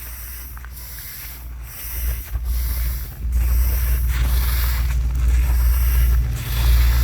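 Rice grains being swept and shuffled while drying, a hiss that swells and fades in strokes about once a second and grows louder about three seconds in, over a steady low rumble.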